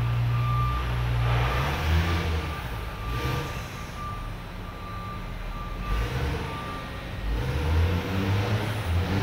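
Heavy machinery running with a low drone that swells and eases, under a high steady warning beep that sounds in broken stretches and stops about seven seconds in.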